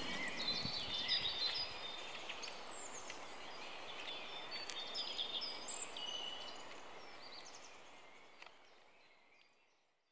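Outdoor ambience of several small birds chirping and calling over a faint background hiss, with a few sharp crackles, fading out to silence near the end.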